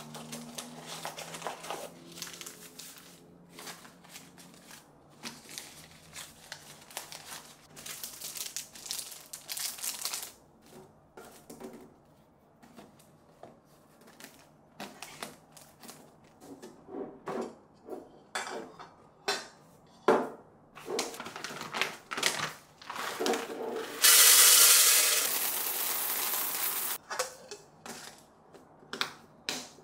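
Close-up handling sounds: paper tea-bag sachets rustling and tapping as they are moved into a woven seagrass storage box, and the seagrass lid and box scraping and rubbing as they are handled. About 24 seconds in comes a louder rushing rustle lasting about three seconds.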